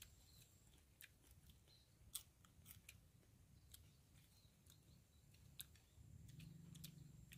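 Faint, scattered crisp crunching clicks of fried grasshoppers being chewed, with a faint low hum coming in about six seconds in.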